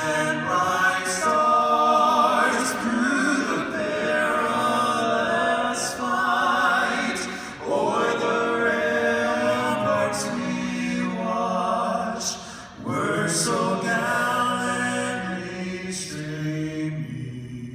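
Five-man male vocal group singing a national anthem a cappella in close harmony, in long held phrases; the sound dips briefly twice between phrases and fades near the end.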